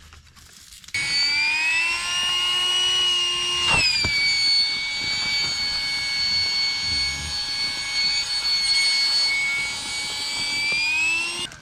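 Small battery-powered electric air pump inflating camping gear. Its motor starts suddenly about a second in and runs with a steady high whine. Its pitch drops sharply at a knock about four seconds in, rises slightly near the end, and then cuts off.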